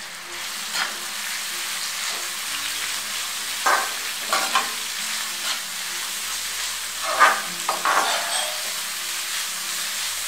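Shredded vegetables sizzling in hot oil in an aluminium kadai, stirred with a slotted metal spatula that scrapes across the pan several times, the strokes loudest about seven to eight seconds in.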